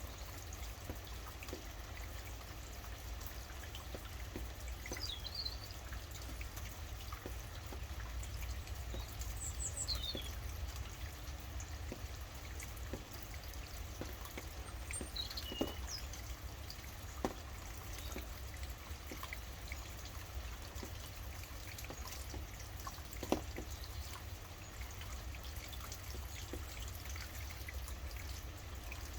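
Steady rain falling, with a few short high bird chirps scattered through and three louder single drops landing in the second half, over a low rumble.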